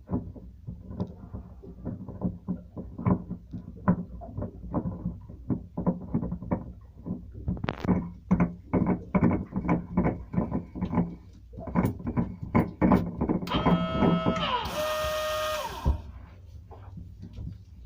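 Clicks and knocks of parts and hand tools being handled while a water-separating fuel filter and its housing are fitted. Near the end comes a squeak that slides down in pitch, then a short burst of hiss.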